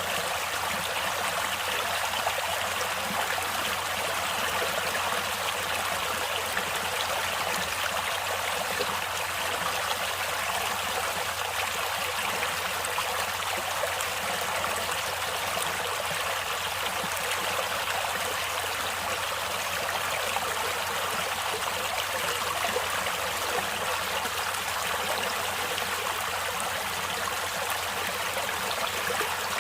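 Natural stream water flowing and trickling steadily, an even rushing hiss with no breaks or changes.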